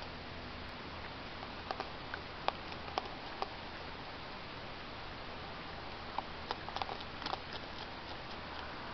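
Raccoons eating food from the ground: short, sharp crunching clicks of chewing in two brief clusters, over the steady hiss of a trail camera's microphone.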